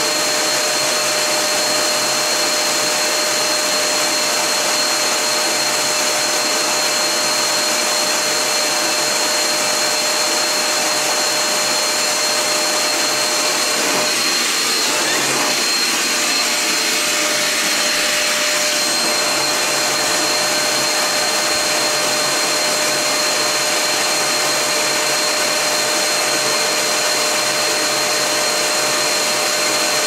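Housmile handheld UV-C bed vacuum, a 400-watt unit, running steadily: even motor and airflow noise with a constant high whine. For a few seconds around the middle it is shifted across the t-shirt beneath it, and the sound changes briefly.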